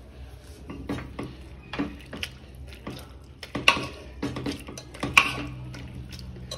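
Boiled potatoes, carrots, peas and capsicum being mashed by hand in an aluminium pressure cooker, the masher knocking and scraping against the metal pot in irregular strokes, with two louder clanks about four and five seconds in.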